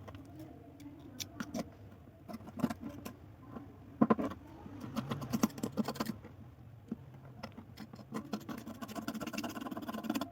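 Metal key being handled and cleaned: irregular clicks, taps and scraping rubs of metal, with one sharp knock about four seconds in.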